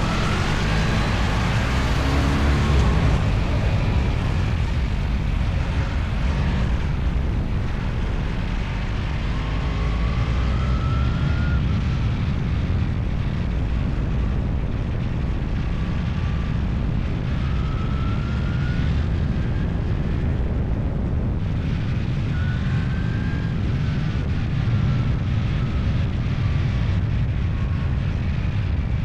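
Motorcycle engine running under way, over a steady low rumble of wind and road noise. A faint whine rises in pitch a few times as it accelerates.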